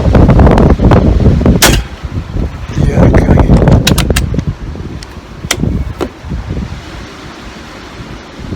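Strong gusts of wind buffeting the microphone, with a single sharp crack of a pellet air rifle shot about one and a half seconds in and a few lighter sharp clicks around four to six seconds in.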